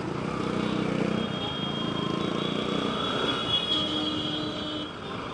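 City traffic noise heard from a moving motorcycle, with a drawn-out high-pitched squeal through the middle.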